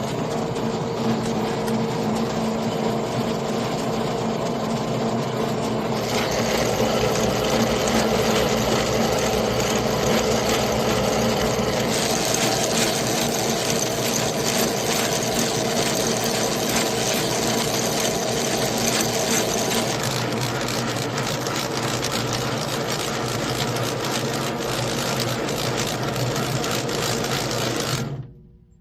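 Atlas lathe running steadily, a continuous mechanical whir with a constant hum. The sound shifts abruptly about six, twelve and twenty seconds in, and cuts off just before the end.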